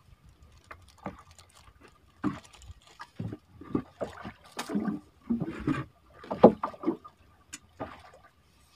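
Water sloshing and splashing against the side of a small boat in irregular bursts, with a few light knocks.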